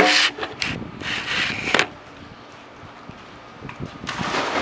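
A camera is handled and set down on a concrete pool ledge, with knocks and scraping in the first two seconds. About four seconds in, a person jumps feet-first into a swimming pool, and the splash begins.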